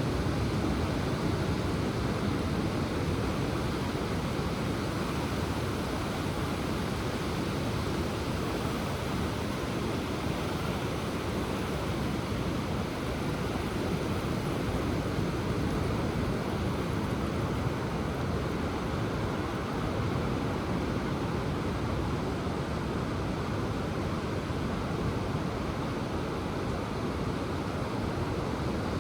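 Ocean surf breaking and washing onto the shore, heard as a steady, even rush of water.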